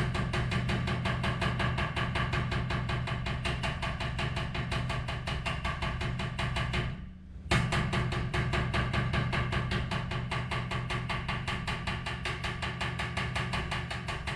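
Rapid, even tapping of a metal hand tool on the dented sheet-metal rear fender of a Toyota Tundra, several strikes a second, as the dent is worked out by hand. The tapping breaks off briefly about halfway through, then resumes.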